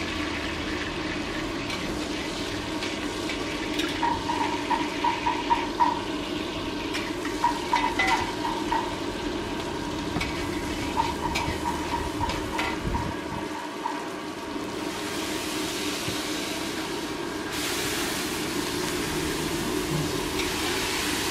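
Wok stir-frying: a metal spatula scrapes and taps around a carbon-steel wok in quick rhythmic runs, about five strokes a second, over a steady burner roar and food sizzling in hot oil. About two-thirds through, a louder, even sizzling hiss takes over as the wok fills with steam.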